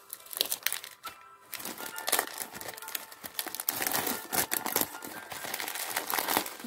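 Clear cellophane wrap crinkling and crackling as it is peeled and pulled off a perfume box, a dense run of irregular crackles, with faint music underneath.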